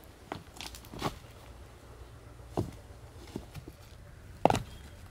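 Several separate short crunches and knocks of someone moving about and handling things on dry leaf litter, the loudest about four and a half seconds in.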